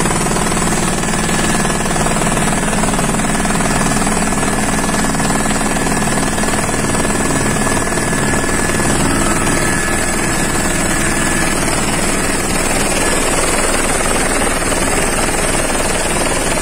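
Helicopter engine and rotor noise heard from inside the cabin in flight: a loud, steady drone with a thin high whine held over it.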